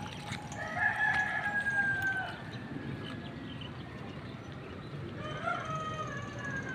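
A rooster crowing twice: a long, slightly falling crow about half a second in, then a fainter one near the end.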